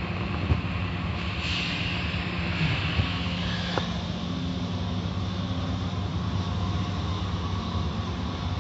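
Automatic car wash heard from inside the car: a steady low mechanical drone from the wash machinery, with water and foam spraying and sheeting over the glass, brightest in the first few seconds, and a couple of soft knocks.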